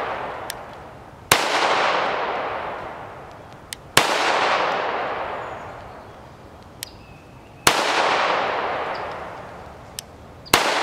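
Beretta 80X Cheetah .380 ACP pistol fired four times in slow, deliberate succession, about two and a half to three and a half seconds apart, the first about a second in and the last near the end. Each shot is followed by a long fading echo, and a faint click comes between shots.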